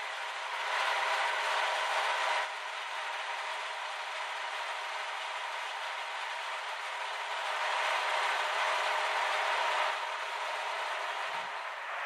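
A machine running steadily with a mechanical rattle, getting louder twice for a couple of seconds each time.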